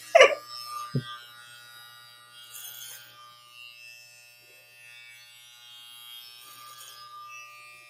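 Electric hair clippers running with a faint steady hum as they cut through curly hair. A single soft bump about a second in.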